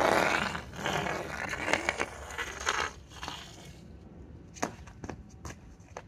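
Hockey stick blade and puck scraping on rough asphalt for about three seconds, followed by four short sharp clicks near the end.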